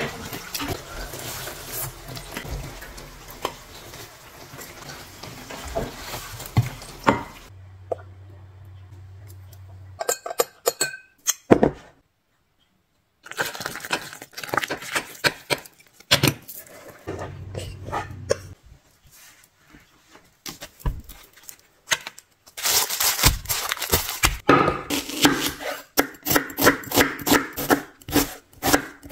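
Crisp fried pastry crackling as it is torn open, then kitchen work sounds: water poured into a bowl of flour, utensils clinking, and a knife chopping an onion on a wooden board in a quick run of knocks near the end.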